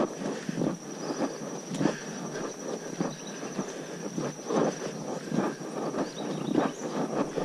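Footsteps crunching on a gravel track, roughly two steps a second, with a steady high-pitched insect drone behind them.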